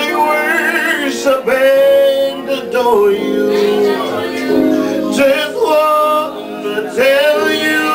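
Gospel worship music: male and female voices singing held, bending notes and runs without clear words, over instrumental accompaniment.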